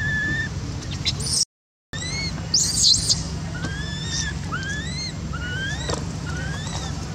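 Baby long-tailed macaque crying in distress after being roughed up by an adult: a string of high, arching squeals about once a second, with two louder shrill screams near the middle.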